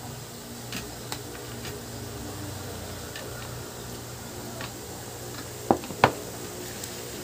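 Meal-time eating sounds: spoon and fork clicking lightly against a plate over a steady low hum, with two sharp knocks close together near the end.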